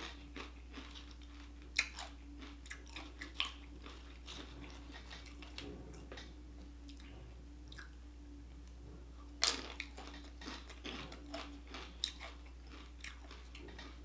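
Chewing and crunching of tortilla chips, with wet mouth clicks between crunches and one louder crunchy bite about nine and a half seconds in.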